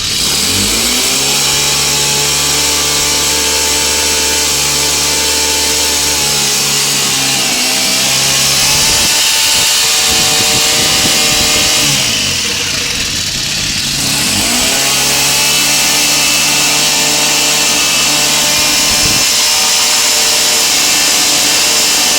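Knapsack power sprayer's small petrol engine running after a carburettor adjustment, revved up twice and held at high speed, dropping back to a lower speed in between and again near the end. The steady high-speed running is offered as the sign that the engine now takes load properly.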